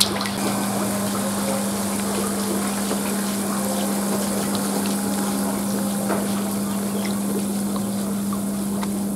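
Air from an LP-100 aerator bubbling up through fish-pond water from the airstone, fizzing and splashing at the surface, over a steady low hum; the aerator's air filter has just been cleaned. A sharp knock at the very start.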